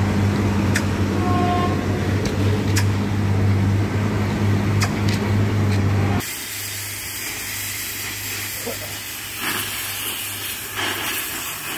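The engine of a railway track-relaying machine running with a steady low hum and a few sharp metallic clicks. About six seconds in, this gives way to the steady hiss of a gas cutting torch cutting through a steel rail.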